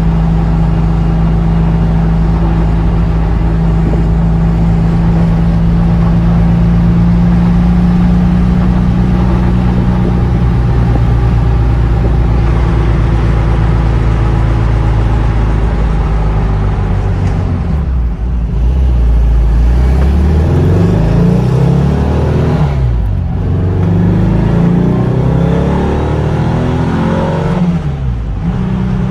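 1956 Porsche 356A's air-cooled flat-four engine heard from inside the cabin while driving: steady cruising at first, then accelerating hard through the gears in the second half, pitch rising in pulls broken by three brief dips at the gear changes.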